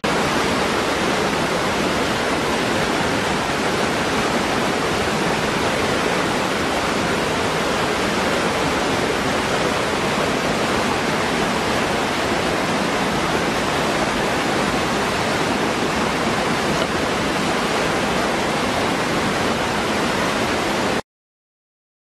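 Small waterfall pouring into a rocky pool: a steady rush of falling and splashing water that cuts off suddenly near the end.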